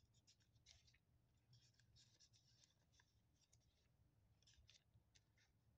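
Very faint, scattered rustling of thin paper pages being turned in a Bible.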